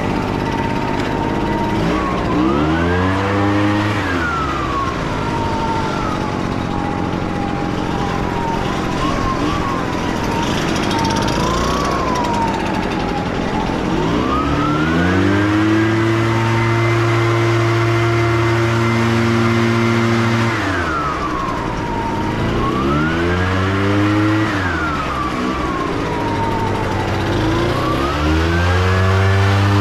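EGO battery-powered leaf blower running, its motor whine climbing and dropping in pitch as the trigger is squeezed and eased off. It spins up to full speed four times, held high for about five seconds in the middle, with a lower wavering whine between the bursts.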